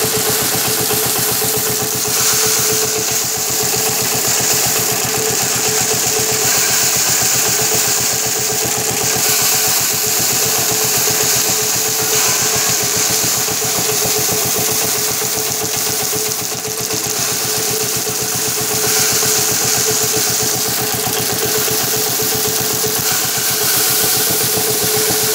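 Power-driven wooden drum paddy thresher running steadily with a constant hum and a fast, even beat, while bundles of rice stalks pressed against the spinning drum add a hiss of stripped grain and straw that swells at times.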